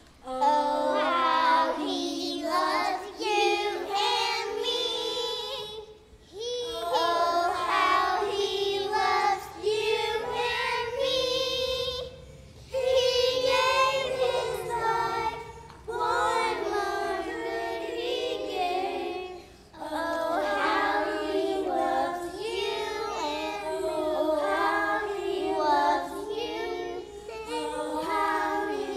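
Group of young children singing a song together, in sung lines separated by brief pauses.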